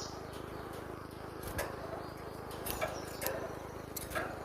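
A steady hum and hiss with about four faint sharp clicks spread through it, in a pause with no clear bird song.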